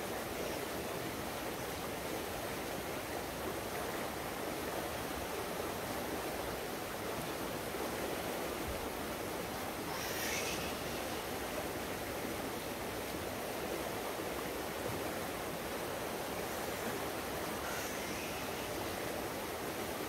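Swollen stream rushing steadily over rocks in spate, an even wash of flowing water.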